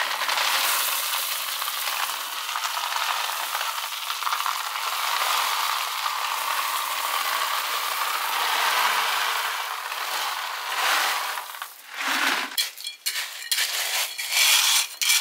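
Gravel pouring from a plastic bucket onto a geotextile membrane in a steady stream for about twelve seconds, then short clicks and scrapes of stones as it is spread by hand.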